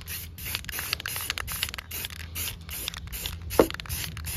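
Aerosol spray-paint can spraying in short, quick bursts of hiss, about four a second, with one sharp tap about three and a half seconds in.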